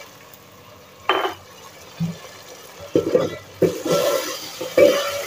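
Metal spoon stirring a watery onion-tomato masala in a metal cooking pot, scraping and knocking against the pot in short bursts, most of them in the second half.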